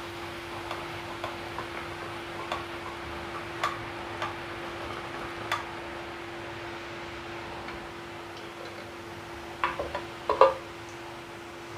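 A spoon taps now and then on a steel perforated ladle as boondi batter is pushed through into hot oil, over the steady sizzle of deep-frying and a steady low hum. About ten seconds in come a few louder metal knocks, the loudest sounds here, as the ladle is set aside.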